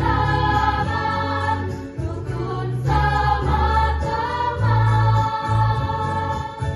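School choir of young singers holding sustained notes in harmony, with a bass-heavy accompaniment underneath.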